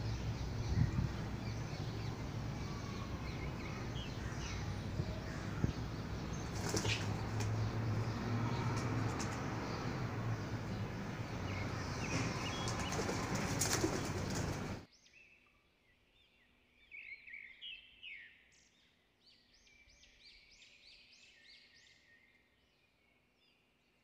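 Outdoor garden ambience: a steady rumbling noise with a few sharp knocks and faint bird calls, which cuts off suddenly about 15 seconds in. A quieter stretch of rapid, high chirping from small birds follows.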